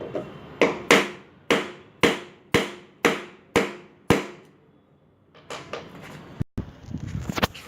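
Eight hard hammer blows on a hard object, about two a second, each ringing briefly, followed by lighter irregular knocks and clatter.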